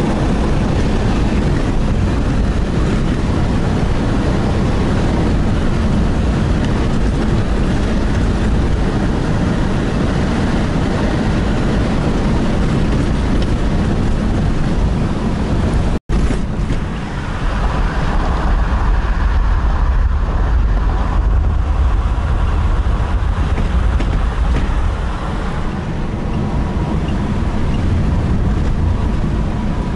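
Car driving on wet asphalt, heard inside the cabin: a steady, loud rumble of tyres and engine. The sound cuts out for an instant about halfway through, then carries on.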